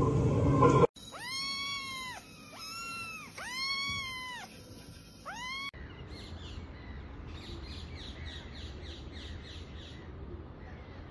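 A loud rumbling noise for about a second, then a kitten meowing three times, each meow rising and falling in pitch, and a fourth cut short. After that come faint, high ducklings' peeps, about three a second, over a low hiss.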